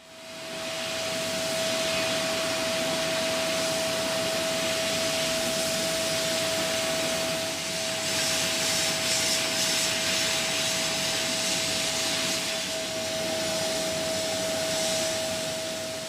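A workshop machine running steadily: a rushing, hissing air noise with a steady high hum. It winds up over about a second at the start and shuts off near the end.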